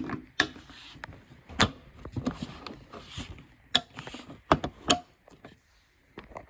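Irregular handling clatter: a dozen or so sharp clicks and knocks with light rattling between them, dying away about a second before the end.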